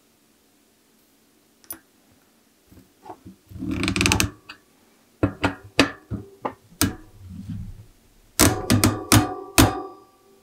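Steel bicycle cassette cogs clinking and rattling as they are slid onto the freehub, then sharp metal clicks and clanks as a lockring tool and wrench are fitted and the lockring is tightened. A quick run of clicks near the end sets the cogs ringing briefly.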